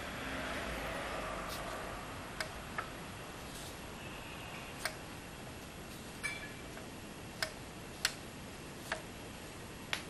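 A soft rustle for the first couple of seconds, then scattered sharp, light clicks, about eight of them at uneven spacing.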